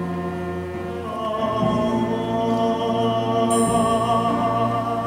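Live pit orchestra playing the closing bars of a musical-theatre ballad: sustained, slowly held chords that shift to a new chord about a second and a half in.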